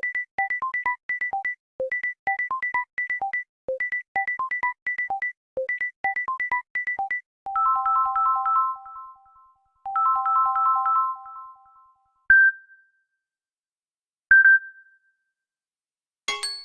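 Samsung Galaxy phone ringtone and notification tones played one after another: a quick, bouncy electronic note pattern repeating for about seven seconds, then two ringing three-note chimes, then two single high pings about two seconds apart. A new tone starts just before the end.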